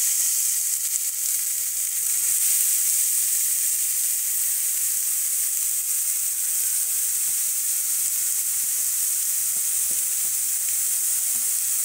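Grated carrots sizzling steadily in hot desi ghee in a kadhai, a high, even hiss as they start to fry.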